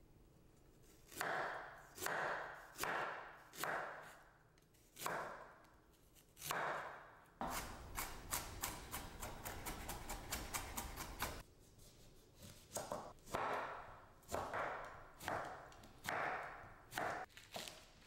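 Chef's knife cutting ginger on a wooden cutting board: single slicing strokes about a second apart, then a few seconds of fast mincing chops, about five a second, then slower separate cuts again.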